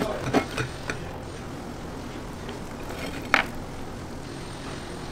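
Knife and fork cutting through a chicken burger: a few short crunches and clicks in the first second, then steady low background noise with one sharp click about three seconds in.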